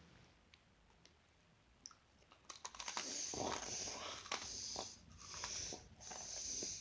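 A crunchy cookie being bitten and chewed close to the microphone: crisp cracks and crackly crunching that start about two and a half seconds in and go on in uneven bursts.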